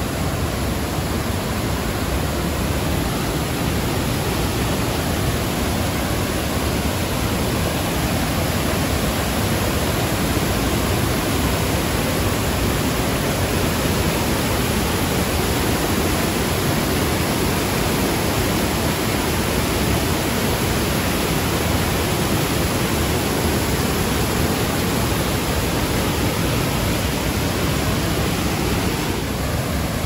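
Waterfall on the Krka River, white water pouring over rocky ledges in a steady, even rush.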